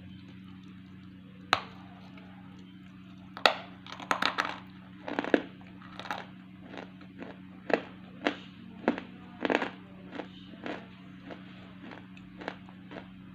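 A series of sharp, irregular cracks and crunches, with a dense flurry a few seconds in, over a steady low electrical hum.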